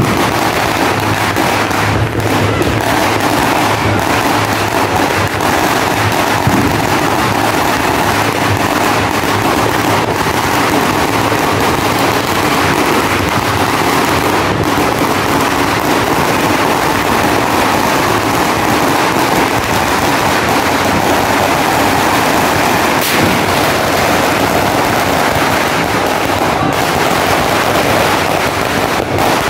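A 5,000-round firecracker belt (sinturon ni Hudas) going off in one unbroken, rapid crackle of overlapping bangs, with no pause.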